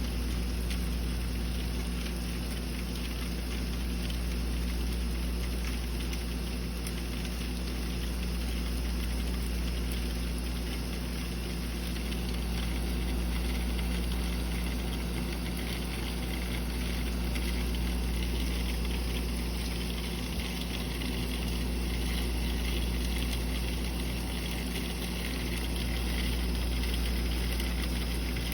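Steady rain falling, an even hiss and patter, over a low rumble that slowly swells and fades every few seconds.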